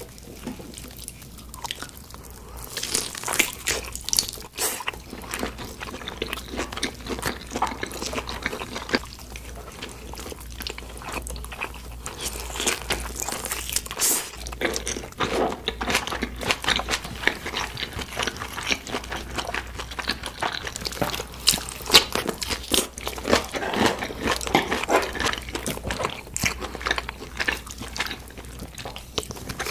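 Close-miked crunching and chewing of crispy meat: a quick, irregular run of sharp crunches with wet chewing between them.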